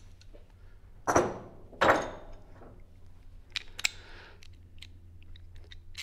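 Metal hand tools being handled: a splined bottom bracket socket and a 3/8-inch drive ratchet clinking and clicking against each other, with two short rattling bursts about one and two seconds in and a couple of sharp clicks near the middle.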